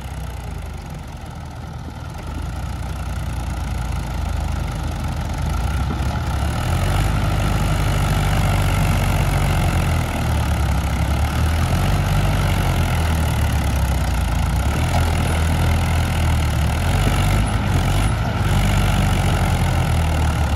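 Mahindra tractor diesel engines running hard under heavy pulling load. The drone grows louder over the first several seconds, then holds steady.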